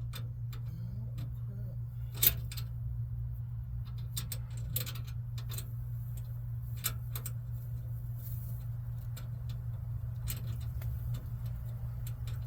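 Loose metal bolts and screws clicking and clinking as they are picked through by hand: a scatter of light clicks, with one sharper clink about two seconds in, over a steady low hum.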